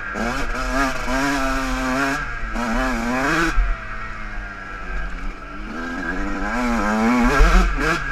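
Motocross dirt bike engine under riding load, revving up and backing off again and again, its pitch climbing and dropping several times.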